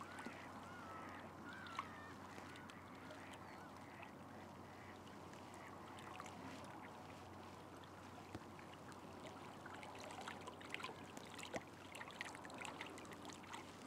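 Quiet open-air ambience over water, with faint distant bird calls in the first couple of seconds and a few soft ticks later on.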